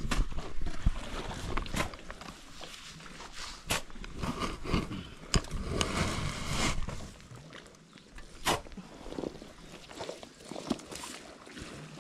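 Footsteps squelching through deep wet mud in waders, with a few scattered sharp knocks as timber poles are handled.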